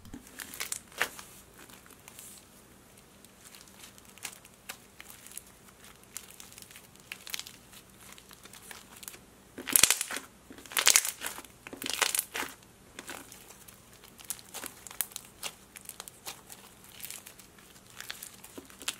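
Thick slime with pieces of foam worked through it being pressed and squeezed by hand, giving irregular crackling and crinkling pops, loudest about ten to thirteen seconds in.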